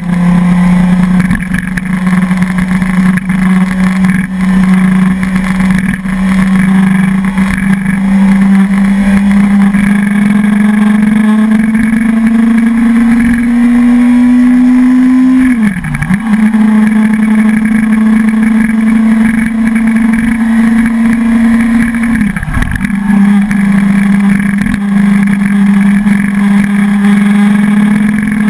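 Suzuki sport bike engine pulling steadily uphill, its note rising slowly for about fifteen seconds, then dropping sharply and recovering twice, about halfway and about three quarters through, as the throttle is briefly closed and a gear is changed.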